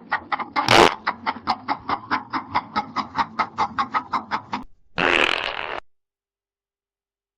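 Comedic fart sound effects: a long rattling fart made of rapid pops, about five a second, with one louder burst just under a second in, stopping after about four and a half seconds. A short hissing fart follows about five seconds in.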